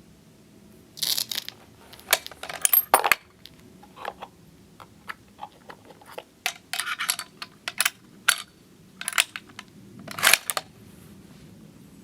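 Irregular light metallic clicks and clinks, like small metal objects being handled, with a few short rustling bursts in between, for about ten seconds, then dying away near the end.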